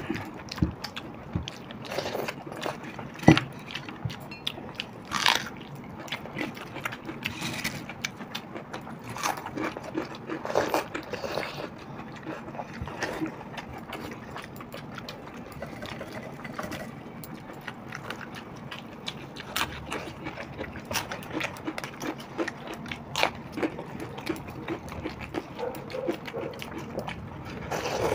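Close-miked eating of watered rice by hand: chewing, lip smacks and wet mouth clicks, with hands mixing and scooping the soaked rice, and a few louder slurps or bites scattered through.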